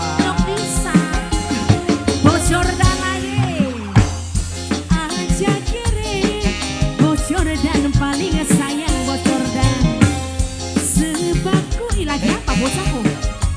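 Live dangdut band music playing an instrumental passage: a steady drum and bass beat under a melody with sliding notes.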